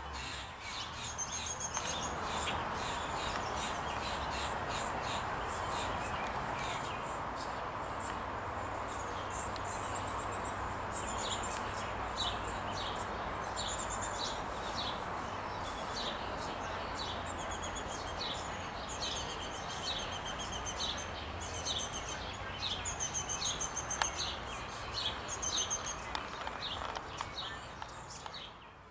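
Orioles chirping at their nest: many short, high calls in quick runs, busier from about ten seconds in, over a steady background rush.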